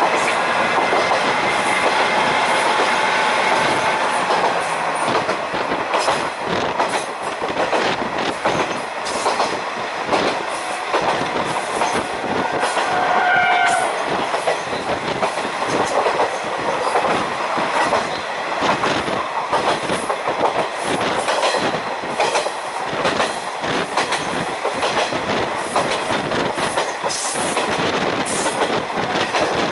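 A JNR-era diesel railcar of the Isumi Railway running at speed, heard at a passenger window: wheels clattering over rail joints over the steady drone of its diesel engine. A short tone sounds about 13 seconds in and again near the end.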